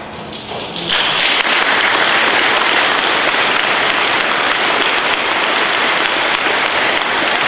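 An audience applauding, starting about a second in and keeping up steadily.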